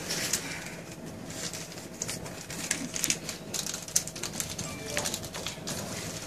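Irregular crackling rustle of a suction catheter's paper-and-plastic packet being opened and handled, over a faint steady hum.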